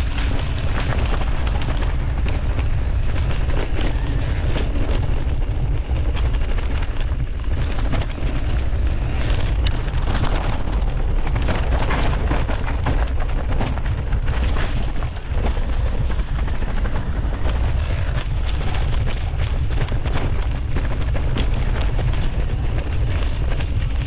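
Mountain bike riding along a dirt trail: wind buffeting a GoPro Hero 11's microphone as a heavy, steady rumble, over tyre noise and a constant stream of clicks and rattles from the bike on the rough ground.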